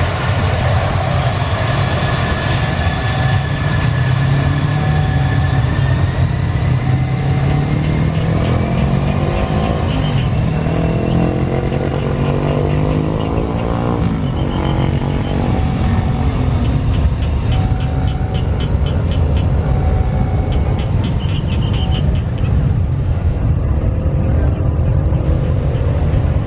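Avro RJ85's four Honeywell LF507 turbofan engines running as the jet taxis and turns onto the runway: a steady low rumble under a high whine that rises in pitch over the first several seconds.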